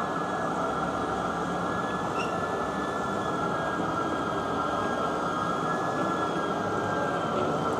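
South Bend 14-inch tool room lathe running under power: a steady mechanical hum with a faint high whine held throughout.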